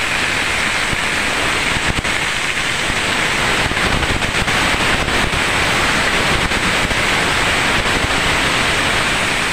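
Tender drumstick (moringa) pods and potato pieces frying in hot oil in a steel kadai: a loud, steady sizzle, with a few faint clicks as the pan is stirred.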